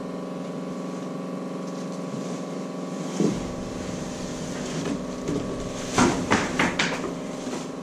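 Large cardboard shipping box scraping and knocking as it is lifted up off a packed motorbike: a thump about three seconds in, then a cluster of sharp scrapes and knocks near the end. A steady hum runs underneath throughout.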